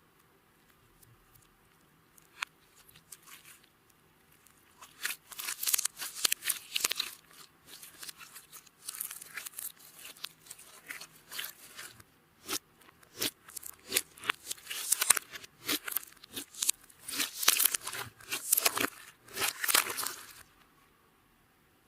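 Clear slime being mixed and squished by hand, a dense run of crackling clicks and pops that starts a few seconds in and stops shortly before the end.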